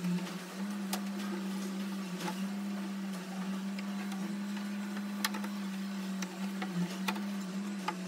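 A steady low hum, like a small electric motor, dipping slightly in pitch now and then, with scattered sharp clicks and taps of a screwdriver on the washing machine's plastic tub cover and frame.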